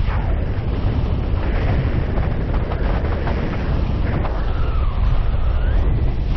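Steady, heavy wind buffeting the microphone of a paraglider pilot's camera in flight, with faint gliding whistle-like tones over it.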